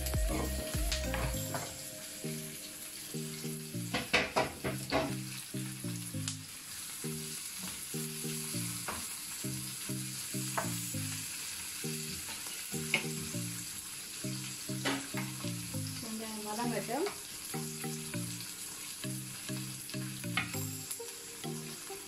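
Sliced onions sizzling in oil in a nonstick frying pan, stirred now and then with a wooden spatula, with a few sharp clicks and scrapes. The onions are being sautéed until half-softened. Soft background music plays underneath.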